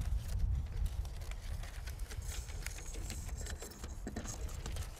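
Scattered sharp clicks and light rustling over a steady low wind rumble on an outdoor microphone, with a short stretch of hiss about halfway through.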